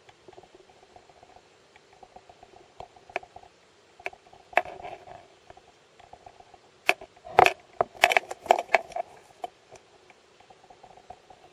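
Irregular sharp clicks and knocks, scattered at first and then a quick dense cluster about seven to nine seconds in, over a faint steady hum.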